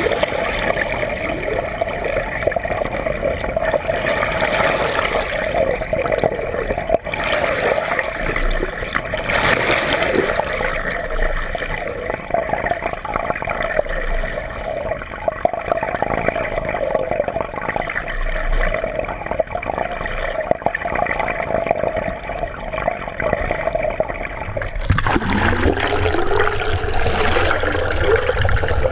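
Steady rushing, gurgling water noise from a camera moving underwater. Near the end the noise changes and low wavering tones come in.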